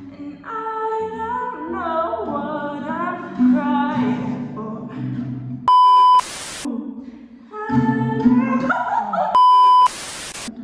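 Voices singing without clear words, their pitches sliding up and down, in an empty, echoey room. This is cut twice by a short high beep, each followed at once by a loud half-second burst of hiss.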